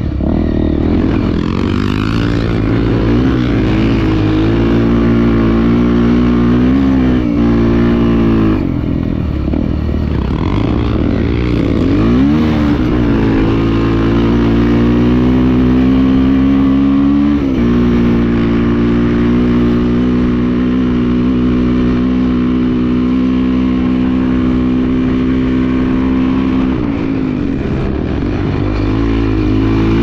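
Single-cylinder four-stroke trail motorcycle engine running under load. Its revs rise and fall several times, with clear drops in pitch about a quarter, two-fifths and three-fifths of the way through, and a dip near the end.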